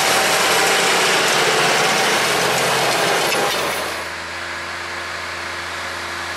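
New Holland T7.230 tractor running under load while pulling a seed drill through soil: a loud, even rushing noise that drops about four seconds in to a quieter, steady engine hum.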